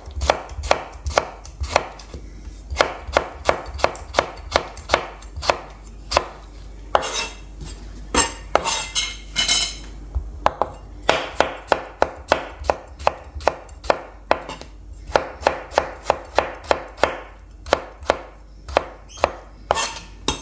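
Chef's knife chopping tomatoes on a plastic cutting board: a steady run of sharp strikes, about three a second, with a few short pauses.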